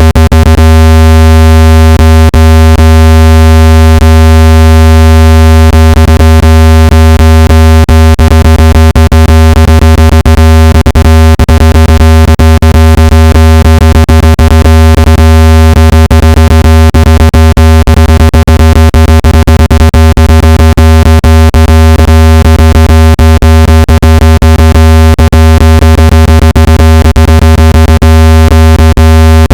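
Loud, steady, low-pitched synthesized tone with many overtones, shot through with frequent sharp clicks. It is a phone speaker-cleaning tone, meant to vibrate dust and moisture out of the speaker grille.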